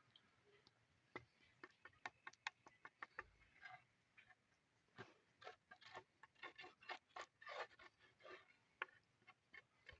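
Faint, irregular clicks and light taps, several a second at their busiest, thickest in the middle and latter part.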